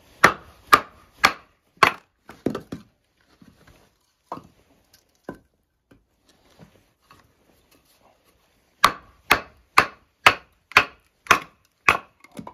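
Wooden baton striking the spine of a Busse Battle Mistress, a quarter-inch-thick fixed-blade knife, driving it down through a log to split it. Four quick strikes, a few scattered knocks, then a steady run of about seven strikes, two a second, near the end.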